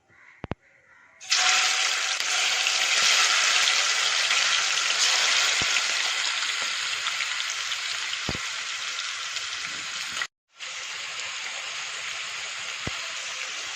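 Marinated prawns frying in hot coconut oil in a pan: a loud sizzle starts suddenly about a second in as they go into the oil and slowly eases. It breaks off for a moment after about ten seconds, then goes on a little quieter.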